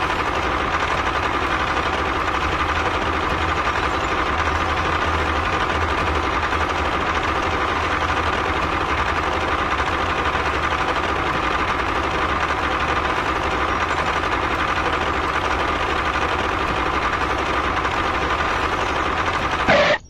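Steady, unbroken engine-like running of a miniature DIY toy tractor pulling a small trailer.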